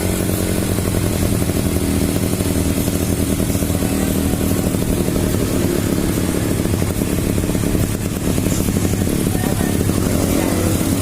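Freshly rebuilt Suzuki two-stroke engine idling steadily just after a cold start, with a brief dip in its note near the end.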